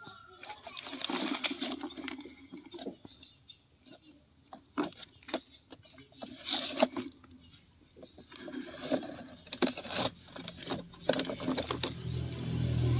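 Irregular scrapes, clicks and rustles of a plastic toy truck being handled and moved over dry dirt and leaves. A low hum swells near the end.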